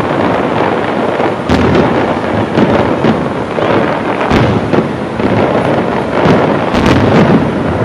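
Aerial fireworks display: many shells bursting and crackling in quick succession, a dense, unbroken barrage with sharper bangs scattered through it.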